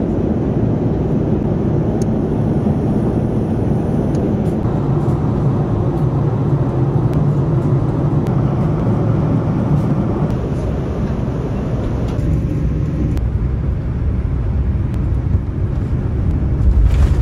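Steady cabin rumble of a Boeing 787 airliner, engine and airflow noise heard from inside the cabin. Its tone shifts a few times, and a deeper, louder rumble builds near the end.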